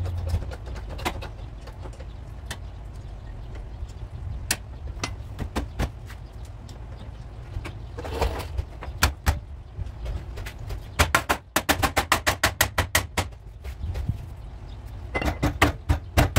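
Hammer knocking on car body sheet metal: scattered single sharp knocks, then a fast run of taps lasting about two seconds midway, and another short cluster of knocks near the end.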